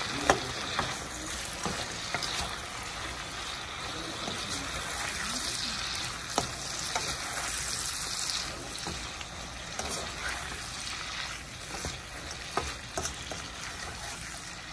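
Beef and sauce sizzling in a wok of hot oil, a steady hiss, while it is stirred, with a utensil clicking and knocking against the wok now and then, sharpest just after the start and about six seconds in.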